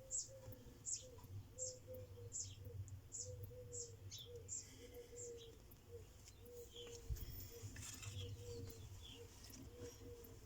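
A small bird chirping faintly: short, high, falling chirps about twice a second, thinning out after about five seconds.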